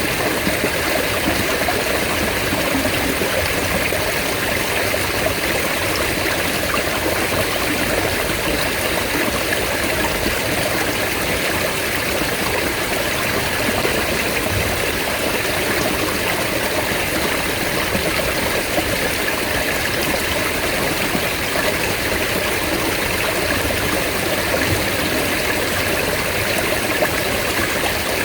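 Mountain stream running steadily: a continuous, even rush of flowing water.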